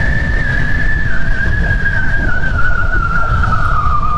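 Wind rushing and buffeting over a riding motorcycle's helmet-mounted microphone at speed, with a steady high whistle that wavers and slowly slides a little lower.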